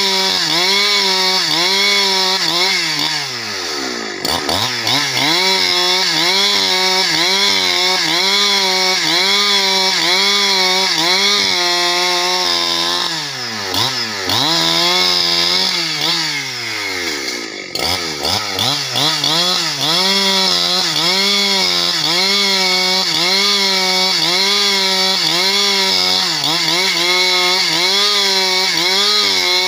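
Husqvarna 365 two-stroke chainsaw ripping lengthwise through a log to cut planks, running at high revs under load with a steadily wavering pitch. The revs drop sharply and climb back about four seconds in, and again a few times around the middle.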